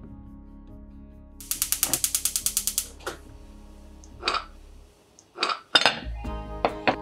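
Gas hob burner's igniter clicking rapidly, about ten clicks a second for just over a second, as the burner is lit. Then a few separate knocks and clinks of kitchenware being handled.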